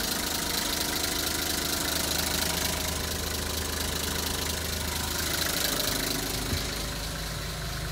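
Nissan Civilian bus's TD42 4.2-litre straight-six diesel engine idling steadily. A light click sounds about six and a half seconds in.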